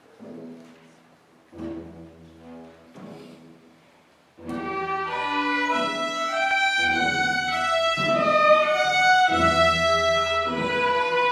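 Student string orchestra of violins, cellos and double bass playing: a few soft, separate notes, then about four seconds in the full ensemble comes in much louder with held chords over a low bass line.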